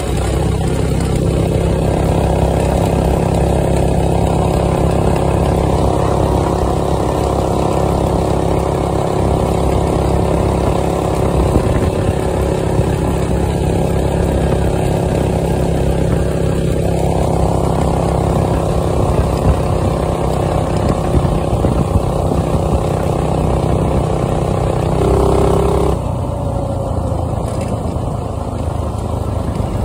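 Go-kart engine running steadily at speed, with a rough noise beneath it from the tyres on a gravel road. About 26 seconds in the engine note drops and gets quieter as the kart slows down.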